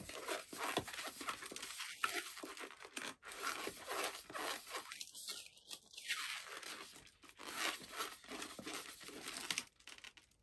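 Pink latex twisting balloon (magic balloon) being twisted into small bubbles: rubbery squeaking and rubbing of the inflated latex under the hands. The sound stops shortly before the end.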